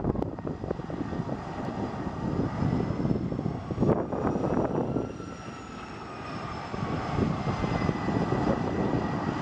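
Twin rear-mounted turbofan engines of a Canadair Challenger business jet running at taxi power: a steady rumble under several high whine tones, which sag slightly in pitch after about six seconds.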